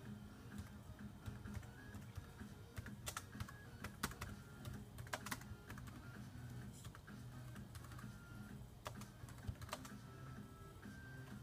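Faint, irregular clicks like typing on a keyboard, the loudest about three to five seconds in, over a low background hum.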